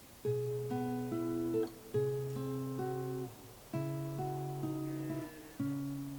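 Acoustic guitar music: a slow, gentle tune of picked notes over low bass notes, in four short phrases.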